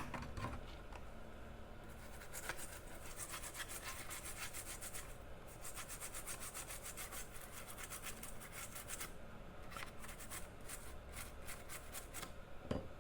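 Scrubbing a laptop circuit board clean with alcohol: quick, rapid rubbing strokes in two spells, with a short pause about two-thirds of the way through.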